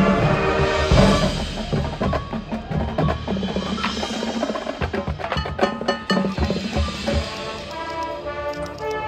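Marching band playing live in a percussion-driven passage: rapid drum and mallet percussion hits with woodblock-like clicks, and held pitched tones coming in near the end.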